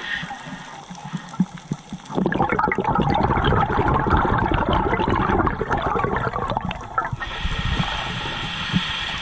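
Scuba diver breathing through a regulator, heard underwater through a GoPro housing: a long breath out of bubbles from about two seconds in, lasting some five seconds, then the hiss of the next breath in near the end.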